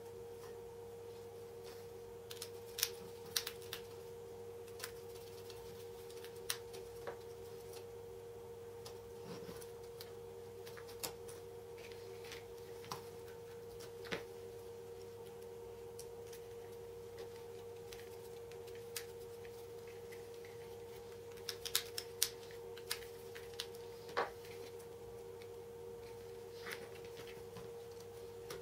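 Light plastic clicks and taps from pushing screw-terminal blocks onto a circuit board and fitting wires into them, scattered, with two busier clusters a few seconds in and about three-quarters of the way through. A steady faint hum runs underneath.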